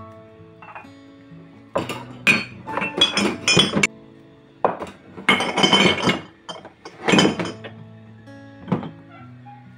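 Ceramic mugs and dishes clinking and clattering against each other and a wire dish rack as they are put away by hand, in several bursts of quick knocks.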